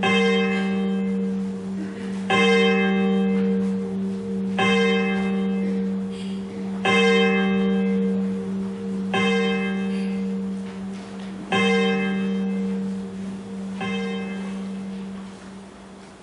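A single church bell tolling seven times, one strike about every two and a half seconds. Each stroke rings on over a steady low hum, and the last strokes are fainter.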